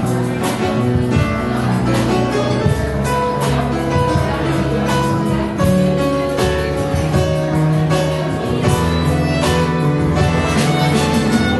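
Live band music led by plucked strings over a walking bass line on a double bass.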